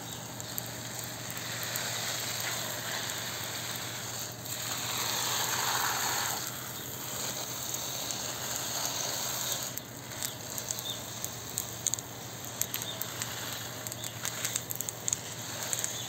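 Water spraying onto plant leaves and soil, rinsing off storm dust: a steady hissing patter. It grows louder for a couple of seconds about a third of the way in and dips briefly just past halfway. It then goes on with scattered droplet ticks.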